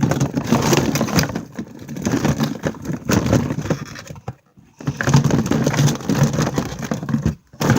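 Rummaging through things in search of a container: a dense run of clattering knocks and rustles, which drops out briefly twice.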